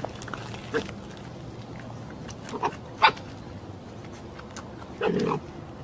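A dog giving a few short barks, with a longer bark about five seconds in.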